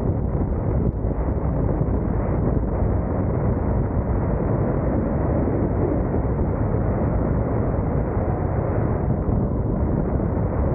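Steady rush of wind noise on a camera microphone mounted on a moving car's hood, mixed with the car's road noise as it drives along the highway.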